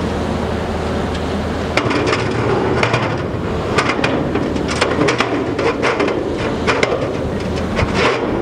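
Aluminum 24-foot extension ladder knocking and clattering in irregular metallic clanks as a firefighter handles and repositions it at its base, over a steady low hum.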